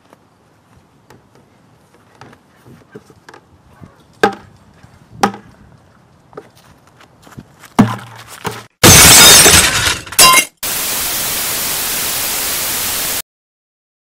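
Light footsteps and a few sharp knocks, then a loud crash as a plastic pail drops from the roof of a portable toilet, followed by a steady loud hiss that cuts off suddenly.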